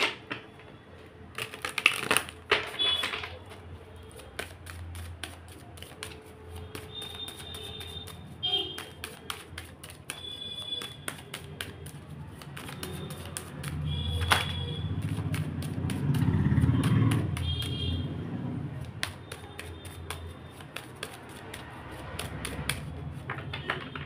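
A deck of tarot cards being shuffled and cut by hand: a long run of quick clicks and riffles as the card edges slap together. A low rumble swells up in the middle and fades again.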